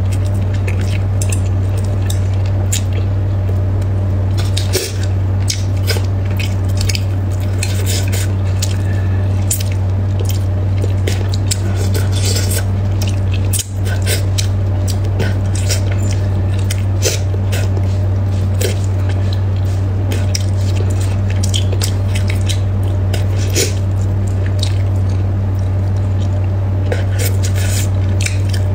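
Close-up wet mouth sounds of a person eating braised fish: frequent smacking, sucking and squishy clicks as she works the flesh off the bones and spits bones into a cup. A steady low hum runs underneath.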